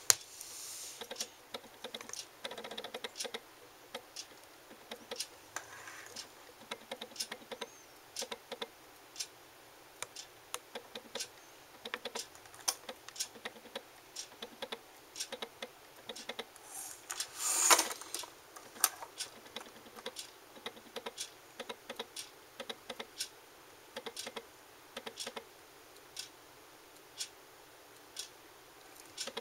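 A run of light, irregular clicks and taps, a few a second, with one louder rustling burst about seventeen seconds in.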